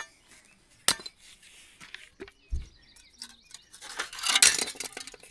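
Hard fire debris, melted glass and metal, clinking and clattering as it is handled and set down: a sharp clink about a second in, a dull knock midway, and a louder run of rattling clinks near the end.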